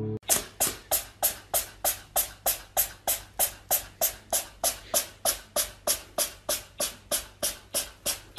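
A tabby cat making short breathy huffs through its open mouth, evenly spaced at about three a second, like a beatbox rhythm.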